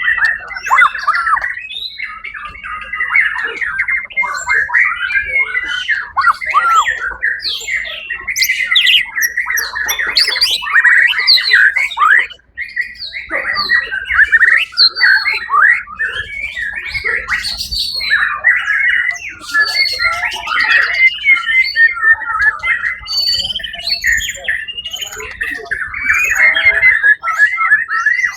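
White-rumped shama singing a rapid, varied song of whistles and chattering notes, pausing briefly about halfway through.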